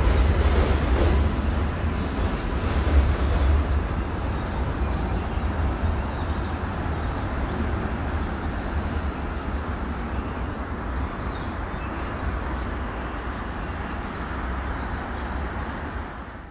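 An elevated subway train rumbling along a steel el structure overhead and slowly fading as it moves away, leaving the steady noise of street traffic.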